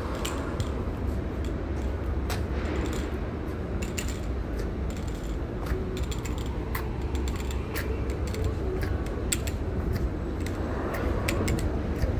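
City street ambience heard while walking: a steady low rumble with light clicks and ticks scattered through it, about one or two a second.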